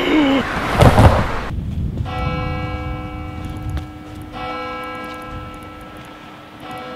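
A shout cut short by a loud crash about a second in, then a church bell tolling, struck three times a couple of seconds apart and ringing on between strokes.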